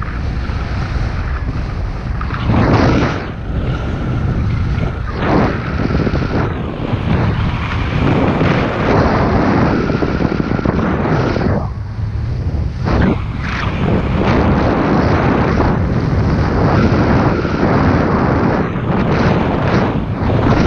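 Airflow buffeting the GoPro's microphone during a paragliding flight: loud, gusty wind rush that swells and eases, with a short lull about twelve seconds in.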